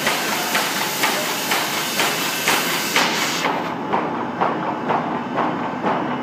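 Heidelberg printing press running, its mechanism clacking in an even rhythm about twice a second over a steady machine din. A high hiss over it stops about halfway through.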